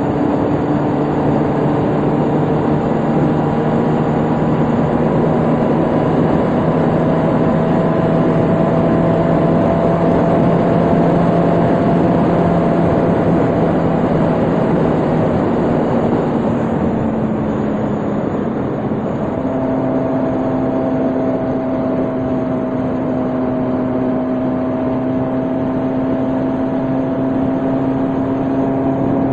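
Motorcycle engine running steadily at cruising speed under a constant rush of wind and road noise. About two-thirds of the way through, the engine note dips and then settles at a new steady pitch, as with a change of gear or throttle.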